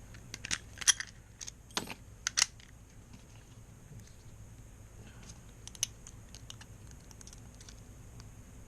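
Sharp metallic clicks and rattles from a Master Lock M5 padlock being handled just after it was picked open: a quick cluster of clicks over the first two and a half seconds, then a few scattered light ticks.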